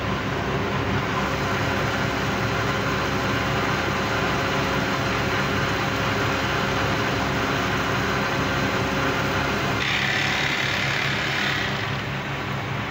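Steady hum of running electric machinery. About ten seconds in, a higher whir joins for under two seconds: a portable electric bag closer sewing machine running.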